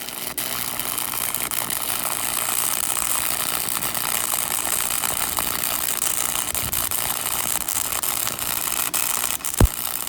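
MIG welding arc laying a bead on steel, a steady frying crackle that starts abruptly, with a single sharp click near the end.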